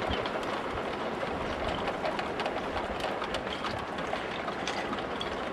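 Plastic bottles and bleach jugs hung on branches as rabbit scarers, rattling and clicking against each other in the wind, a scatter of light irregular clicks over a steady rush of wind with rumble on the microphone.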